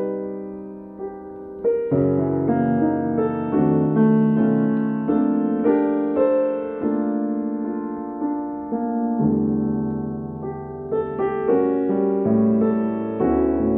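Solo piano played slowly: sustained chords under a melody, the notes changing about once a second, with low bass notes dropping in and out.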